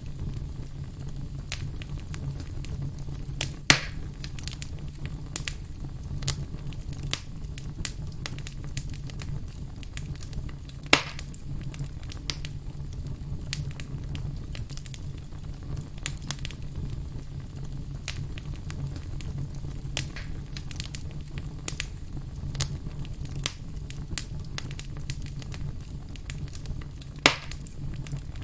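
Burning firewood crackling, with a steady low rumble under a constant scatter of small snaps. Three louder sharp pops stand out: one a few seconds in, one near the middle and one near the end.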